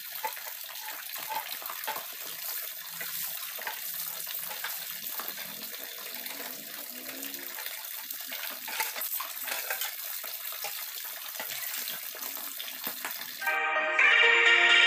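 Water running from a kitchen tap into a sink, with small clinks of things being handled under it. Music starts near the end.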